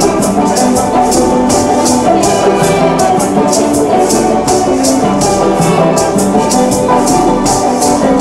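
Live band music: maracas shaken in a steady, even rhythm over a banjo and other instruments playing a tune.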